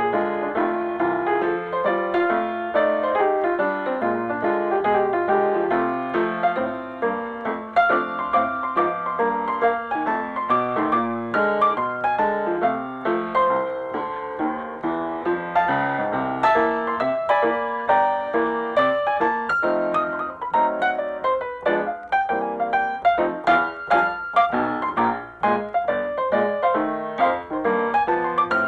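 Background instrumental music led by piano, playing a steady melody of distinct notes.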